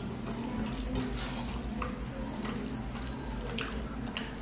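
Fingers mixing rice and fish curry on a steel plate: wet squishing with scattered soft clicks, over a steady low hum.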